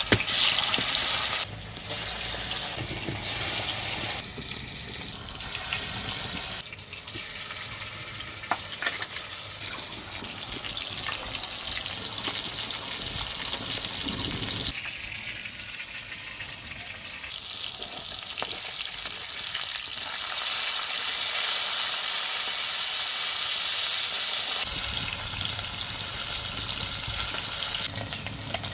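Pieces of katla fish frying in hot oil in a kadai, sizzling continuously, with a few sudden shifts in level.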